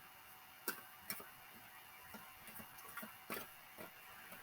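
Faint, irregularly spaced small clicks and taps of tarot cards being handled, over quiet room tone with a faint steady whine.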